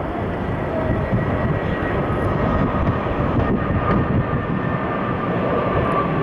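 Airbus A320-214's CFM56 jet engines running at low power as the airliner lands, a steady rushing sound with a faint high whine that grows slightly louder.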